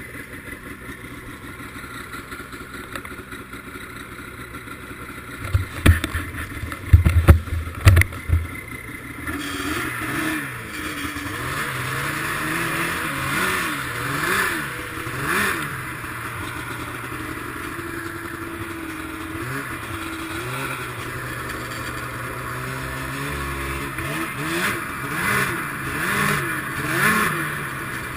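Arctic Cat ZR 800 snowmobile's two-stroke twin engine, quiet at first, with a few heavy knocks about six to eight seconds in; then the throttle is blipped again and again, the engine note rising and falling. The owner suspects bad fuel injectors behind its running problems.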